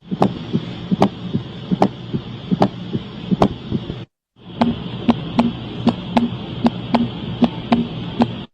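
Recorded heart sounds: a regular beat of low thumps with sharp clicks, over a steady hiss. It plays as two separate clips with a brief silent break between them, and the second clip beats faster, about three times a second.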